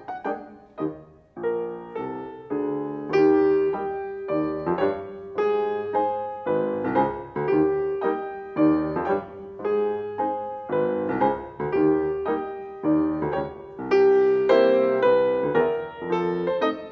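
Grand piano played solo: a melody of separately struck notes over chords, in steady phrases.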